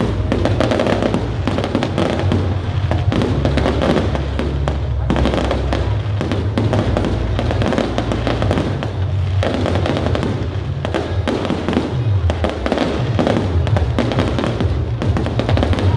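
Fireworks display: aerial shells bursting and crackling in quick succession, with no let-up.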